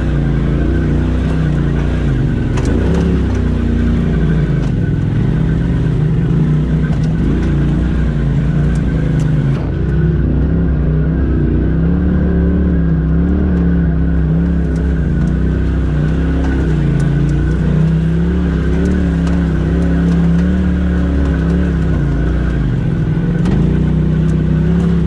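Polaris RZR Turbo S side-by-side's engine running at low revs while crawling over rocks, its note rising and falling over and over with the throttle.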